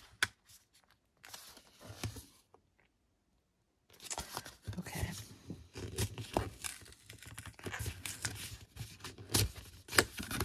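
Card-stock packaging being worked and torn open to free a metal ruler stencil: paper rustling and crinkling with small sharp clicks, broken by a short gap of dead silence about a third of the way in.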